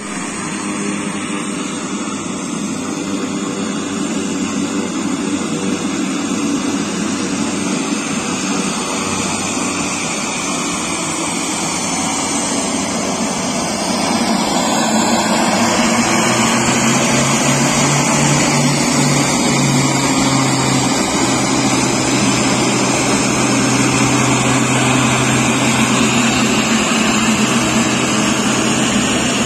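Engines of a twin-engine turboprop airliner running as it taxis, a loud steady noise that grows louder about halfway through, with a low steady hum joining soon after.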